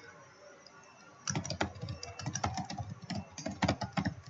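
Typing on a computer keyboard: a quick, uneven run of keystrokes that starts about a second in and goes on until near the end.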